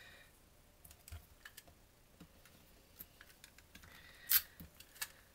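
Small clicks and paper rustles of hands working on a card: a tape-runner adhesive pressed on cardstock and little punched paper flowers picked up and laid down. A sharper rustle comes about four seconds in, and a click about a second later.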